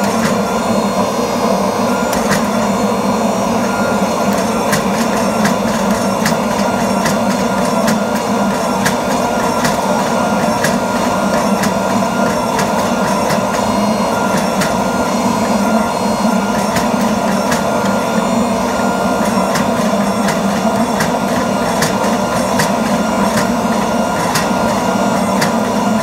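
24-ton hydraulic forging press running with a steady, loud machine drone from its pump while it squeezes a hot damascus billet, with many irregular sharp ticks and crackles over it, typical of scale popping off the hot steel under the dies.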